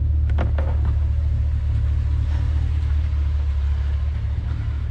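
A truck engine idling, a steady low rumble, with a few light clicks and knocks in the first second.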